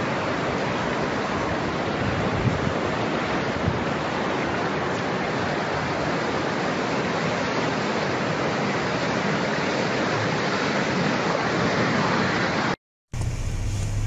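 Water rushing with a steady, even noise that does not let up. It cuts off suddenly near the end, and after a brief break a low steady hum takes over.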